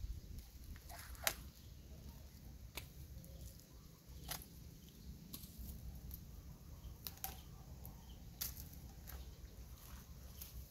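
Pruning shears snipping at irregular intervals: sharp clicks about a second or so apart, over a low steady rumble.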